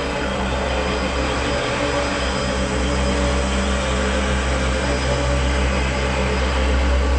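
Aston Martin DBS's V12 engine running at low revs as the car creeps past at walking pace, a steady low exhaust note.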